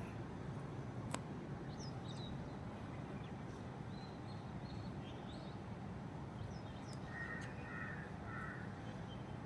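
A crow cawing three times near the end, over faint scattered higher chirps and a low steady background hum, with a single sharp click about a second in.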